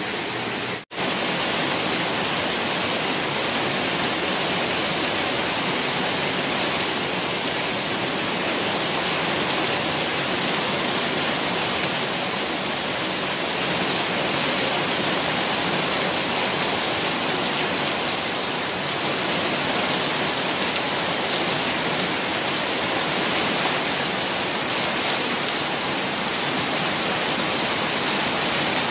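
Heavy rain pouring down, with water rushing and gushing out of an overflowing drain; the steady rushing cuts out briefly about a second in.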